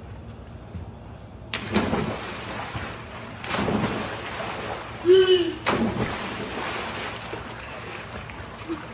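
People jumping into a swimming pool: a sudden splash about a second and a half in, more splashing a couple of seconds later and again near six seconds, with the water churning in between.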